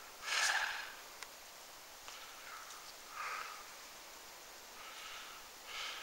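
A person's short sniff about half a second in, followed by a few faint breaths.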